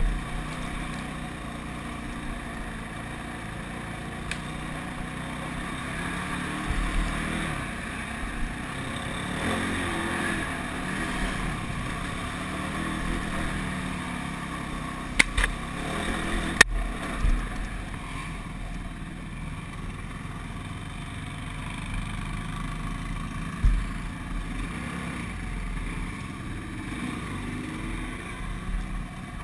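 ATV engine running as the quad rides a rough dirt trail, its pitch rising and falling with the throttle. A few sharp knocks about halfway through are the machine jolting over bumps.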